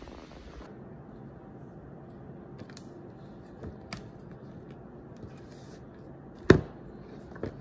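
Handling sounds at a desk: a few light clicks and taps, then one sharp knock about six and a half seconds in, as a smartphone is set down on the desk, and a smaller knock near the end.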